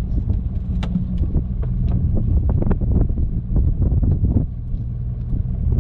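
Wind rumbling on the microphone over the steady low hum of a wooden fishing boat's engine, with scattered knocks and clicks from handling on deck.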